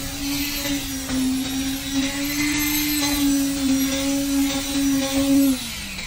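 Handheld electric concrete vibrator with a flexible poker shaft, running in fresh concrete to consolidate it. It gives a steady motor hum that sags in pitch shortly before the end.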